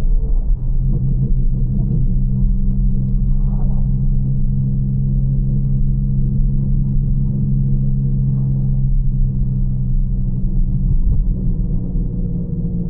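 BMW G82 M4's twin-turbo straight-six heard from inside the cabin while cruising at a steady speed: an even, low engine drone over road rumble, its pitch holding steady.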